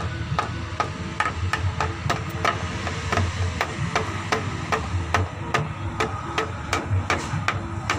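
Hands striking bamboo in a steady rhythm, about two to three sharp knocks a second, each with a short ringing tone.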